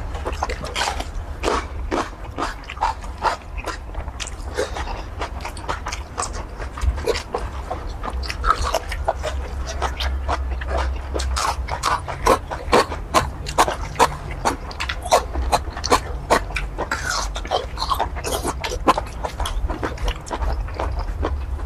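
Close-miked eating of curry squid: chewing and mouth smacking, as a rapid, irregular run of short clicks and smacks, over a low steady hum.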